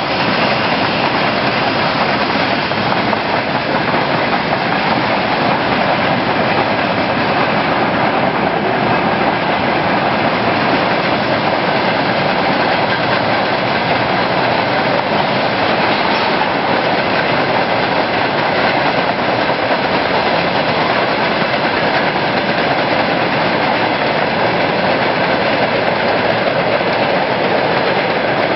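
Long freight train of tank wagons, hauled by an electric locomotive, rolling past on the track: a steady, unbroken noise of wagons running over the rails.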